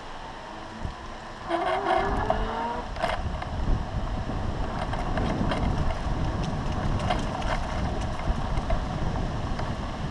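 Wind rumble on the handlebar camera's microphone and the electric bike rolling over a rough, sandy path, with scattered knocks and rattles from the bike. A brief rising whine comes about a second and a half in; the rumble grows louder just after.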